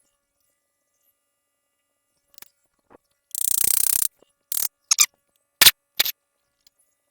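A tool loosening the intake runner bolts on a V6: a couple of faint clicks, then a rapid ratcheting buzz of under a second, then four short sharp bursts.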